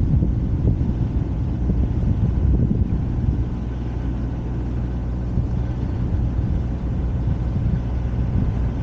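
Steady low engine rumble and wind noise from the vehicle carrying the camera as it moves along.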